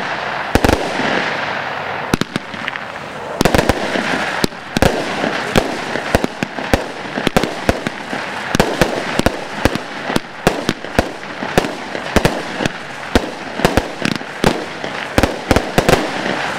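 Consumer fireworks set (Broekhoff Tornado Superset) firing: a rapid, irregular string of sharp bangs, several a second, over a steady hiss from the bursting stars.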